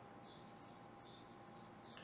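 Near silence: faint room tone with a steady low hum and a few faint, high, short chirps each second.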